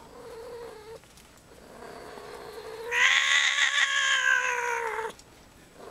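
Tabby kitten yowling: a short low call first, then one long, loud, drawn-out yowl of about three seconds that stops abruptly about five seconds in.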